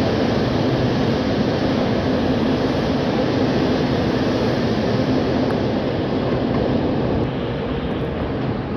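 Chicago 'L' elevated train running over the steel track structure: a loud, steady rumble with a faint hum, easing off a little about seven seconds in.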